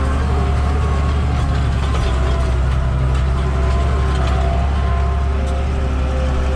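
Tractor engine running steadily under load, heard from inside the cab while it pulls a seed drill across the field: a constant low drone with faint steady whining tones above it.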